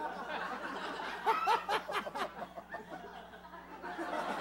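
People laughing and chuckling, swelling briefly about a second in.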